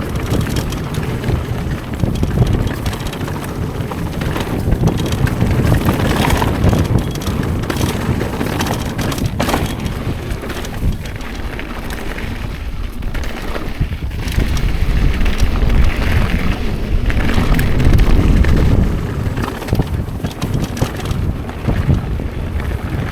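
Wind buffeting a helmet- or chest-mounted action camera's microphone while riding a Yeti SB130 mountain bike down a trail, with tyre noise on dirt and frequent clicks and rattles from the bike.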